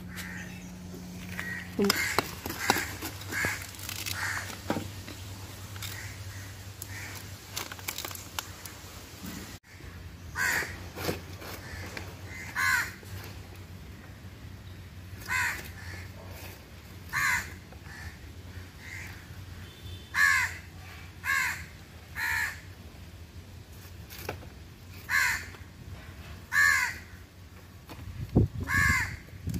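A bird calling over and over in short calls, one every one to three seconds, loudest and most regular in the second half.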